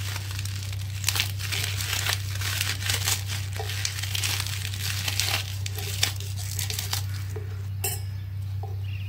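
Fresh green leaves being torn by hand and crumpled into a steel grinder jar, a run of quick crackling rips and rustles, over a steady low hum.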